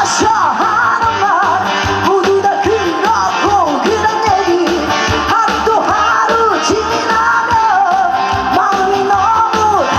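Upbeat Korean trot song played loud over stage speakers: a steady beat under a lead melody that slides up and down.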